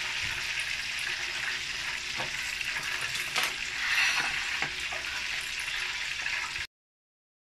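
Hot oil sizzling and bubbling in a frying pan used for deep-frying a whole chicken, with a few light knocks partway through. The sound cuts off suddenly near the end.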